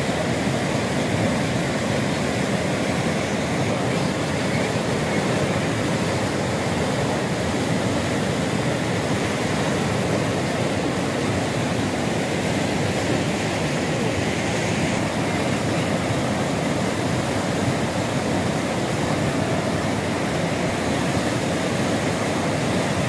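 Muddy floodwater of a river in flash flood rushing and churning past, a steady unbroken noise of rushing water.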